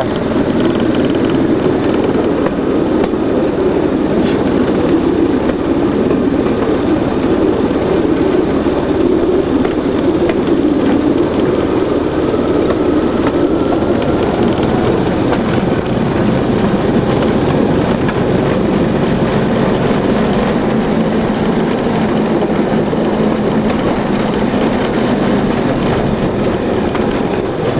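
Small motorized rail draisine travelling along a narrow-gauge track, its small engine running steadily.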